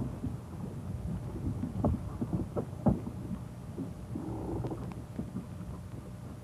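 Steady low hum of an old film soundtrack, with scattered clicks and a few soft thumps, the loudest about two and three seconds in.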